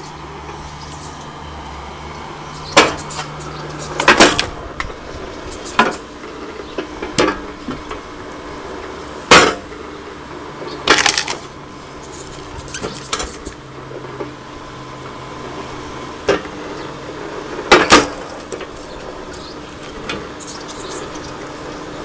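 Homemade electric log splitter running, its motor humming steadily while the pusher drives rounds of firewood onto the wedge. About eight sharp cracks and metallic clanks sound as the logs split and the steel parts knock.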